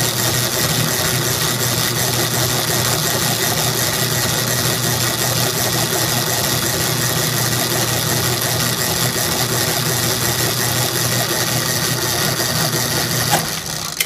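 Dayton power hacksaw running, its electric motor humming steadily as the blade saws back and forth through a round metal bar lubricated with WD-40. About a second before the end comes a sharp click, and the sound then cuts off abruptly as the cut finishes and the saw's automatic shutoff switch trips.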